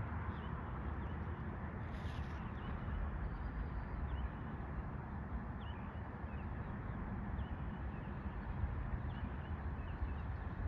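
Scattered faint bird chirps, short and irregular, over a steady low rumble.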